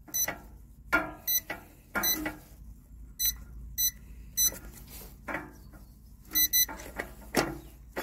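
Electronic safe keypad on a Burg-Wächter Favor safe beeping as its keys are pressed: about eight short high beeps at uneven intervals, some in quick pairs. The safe is in program mode after its reset button was pressed.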